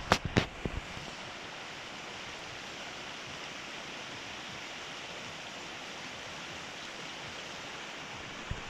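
Steady rushing of a fast-flowing river, with a few sharp clicks in the first second.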